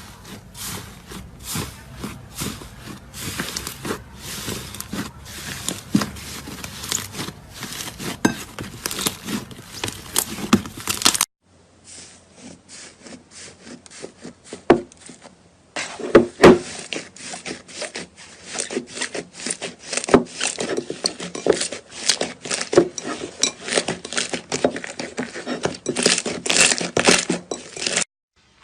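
Hands squeezing and stretching slime, making dense, irregular crackling and clicking pops. A second clip of the same kind of play starts about eleven seconds in, after a short pause.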